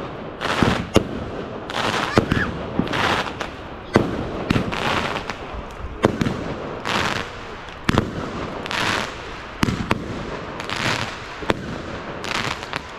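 Fireworks going off: repeated sharp bangs with hissing bursts about every two seconds.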